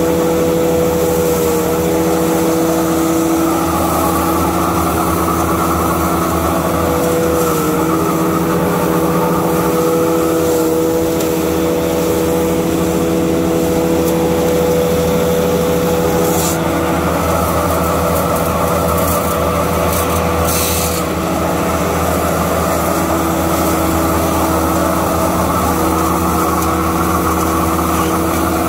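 A 198C three-phase electric hammer mill with cyclone and a 260C pellet mill running together, a loud steady machine drone with a held whine over a low hum, while alfalfa is fed in and ground and pressed into pellets. A few short clicks come about two-thirds of the way through.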